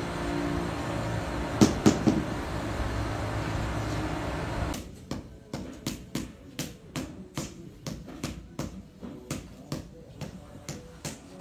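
A steady machine-like hum with two sharp knocks, which cuts off suddenly a little under halfway through. A run of short, regular knocks follows at about three a second.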